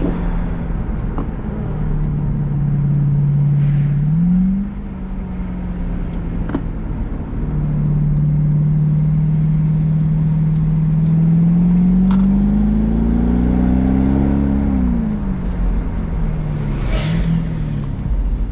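Mercedes-Benz SLK55 AMG's 5.5-litre V8 engine pulling up a mountain pass, heard from inside the car. It runs steadily, revs up briefly about four seconds in, then climbs in revs for a few seconds and drops back, with a short blip near the end.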